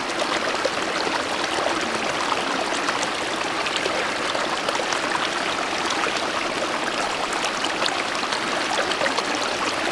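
Small, fast-flowing mountain stream running steadily over rocks: an even, unbroken rush of water.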